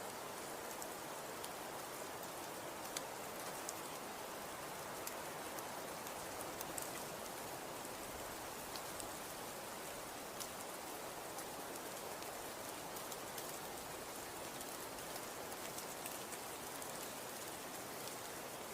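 Snow-and-wind ambience: a steady, even hiss with scattered faint ticks throughout.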